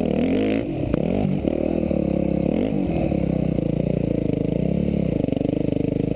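Yamaha YZ250F's single-cylinder four-stroke engine revving up and down over the crest of a jump, with a sharp knock about a second in, then dropping to a low, steady throbbing putter as the bike rolls slowly along.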